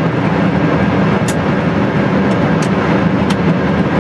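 Steady cockpit noise of an airliner on final approach: an even rush of airflow and engine noise, with a few faint ticks.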